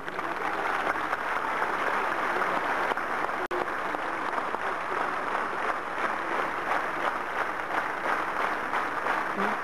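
Crowd applauding: a steady, dense wash of many hands clapping after a speech breaks off.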